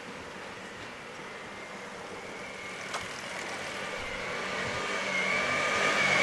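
A motor vehicle approaching along the street, its engine and tyre noise growing steadily louder with a steady whine, coming close by near the end.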